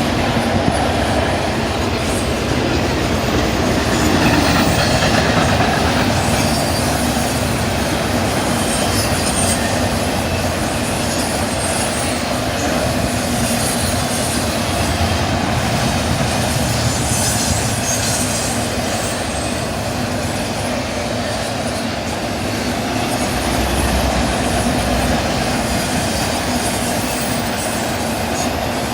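BNSF intermodal freight train rolling past at speed, its container cars making a steady, loud rumble of wheels on rail with clickety-clack and some wheel squeal.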